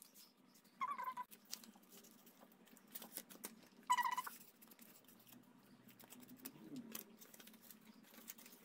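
Faint rustling and light tapping of sulfite paper petals being handled and fitted together, with two short high squeaks, about one second in and about four seconds in.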